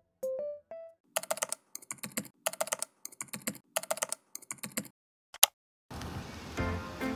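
A few short rising electric-piano notes, then a keyboard-typing sound effect: irregular clusters of key clicks for about four seconds and one last lone click. Background music with a steady beat begins near the end.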